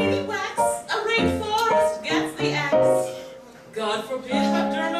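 A woman singing a comic cabaret song to piano accompaniment, with a brief pause about three and a half seconds in.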